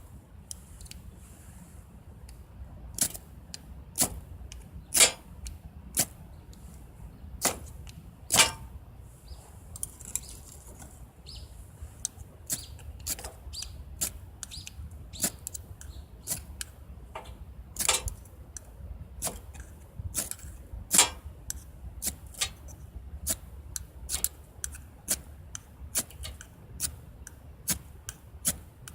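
Wood fire burning in a fire pit, crackling with sharp irregular pops of varying loudness, about one or two a second, over a low rumble.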